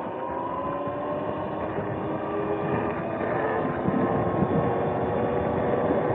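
Sur-Ron X electric dirt bike's motor and drivetrain whining, the pitch rising as it speeds up in the first second or so and then holding steady, over a rush of wind and road noise.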